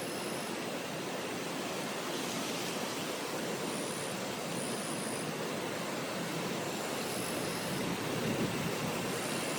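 Steady rushing murmur of flowing river water, with faint short high-pitched trills a few times.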